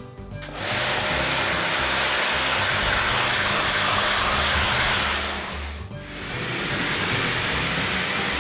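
Karcher K2 Compact pressure washer running and spraying, a steady rushing noise that starts about half a second in, drops out briefly around six seconds in as the trigger is let go, then starts again.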